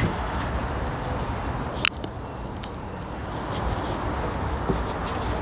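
Semi truck's diesel engine running low and steady, with one sharp click a little under two seconds in.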